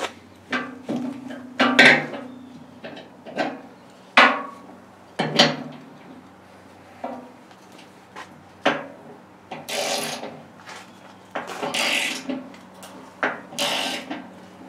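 Hand tools on the steel loader bucket while bolting on hooks: scattered metal clinks and knocks of a wrench and socket, then three runs of ratchet clicking, each about a second long, in the second half.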